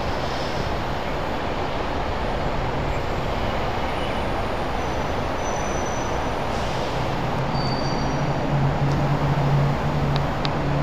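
Steady roar of motorway traffic on the viaduct overhead. In the last few seconds a low hum rises over it and grows a little louder.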